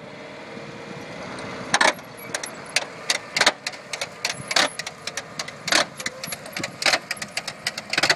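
John Deere tractor engine running as it pulls a John Deere potato planter forward through the soil. From about two seconds in, irregular sharp metallic clanks and rattles come in, roughly four or five a second, some much louder than the rest.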